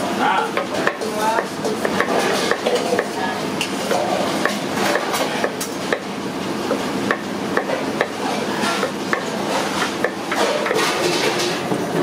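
Kitchen knife slicing small eggplants on a wooden board: irregular sharp knocks and clinks, mixed with the clatter of steel bowls and utensils over a steady busy background noise.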